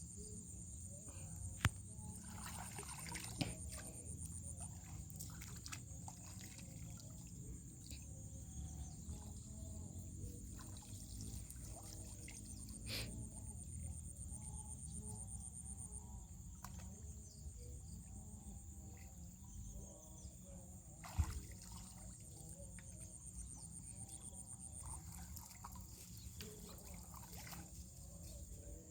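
Insects trilling steadily at a high pitch, one of the calls stopping and starting again a few times, over faint water sounds and a few sharp clicks.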